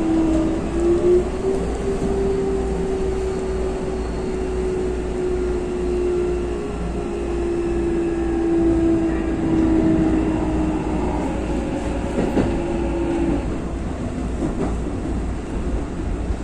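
Keikyu electric commuter train running, heard from the cab, with a steady motor whine that slowly drops in pitch and fades out a few seconds before the end. Near the middle a level-crossing warning bell passes, and a few rail clicks sound about twelve seconds in.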